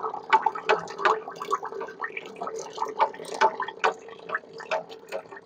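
Crown wheel and pinion of a Swaraj 735 FE tractor's differential turning in oil as the rear wheel is turned, heard close up among the gears. The oil churns and splashes with irregular clicks and knocks over a steady hum. This is the noise complained of from the rear wheel, its cause not yet found.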